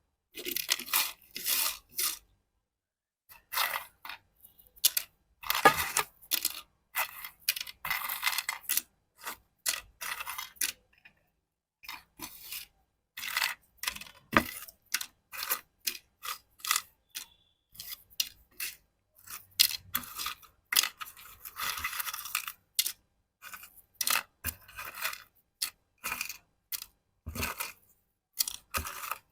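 Crisp snack chips and their plastic snack packet being handled: irregular crinkles and rustles with light clicks as the chips knock together.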